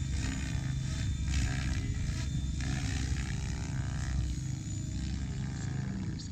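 Mikado Logo 690 electric RC helicopter in flight: the main rotor's deep, pulsing whoosh, with a whine from the drive that glides up and down in pitch as the load changes through hard manoeuvres.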